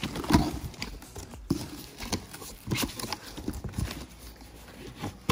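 A cardboard box being opened by hand: packing tape pulled from the seam and the cardboard flaps folded back, with irregular knocks, scrapes and rustles.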